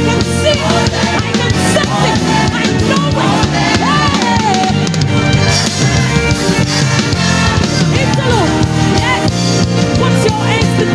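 Live gospel praise band playing with a full drum kit keeping a steady beat, with melodic lines gliding over it.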